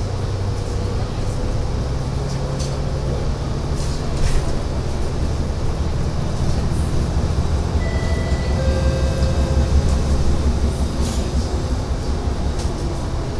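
Mercedes-Benz Citaro city bus heard from inside the cabin while driving: a steady low engine and drivetrain hum with road noise and a few faint clicks. The low hum grows louder for a couple of seconds past the middle, then eases.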